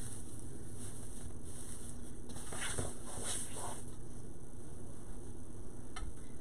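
Deco mesh rustling and crinkling a few times as it is handled, over a steady background hum, with a single light click near the end.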